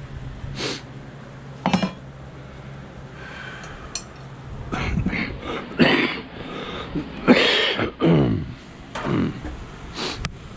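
A man's voice making short non-word sounds, like throat clearing and indistinct mumbling, in several brief bursts in the second half, after a couple of faint clicks.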